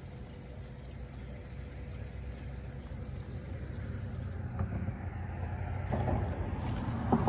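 A low, steady rumble that builds in loudness, then a sharp splash and knock near the end as a small hooked crappie is lifted out of the water.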